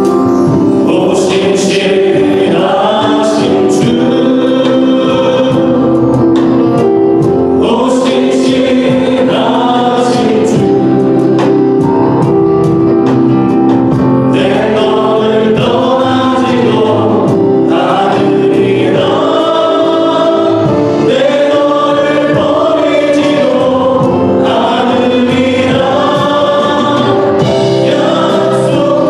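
Church congregation and praise team singing a Korean worship song together, with instrumental accompaniment holding steady notes underneath.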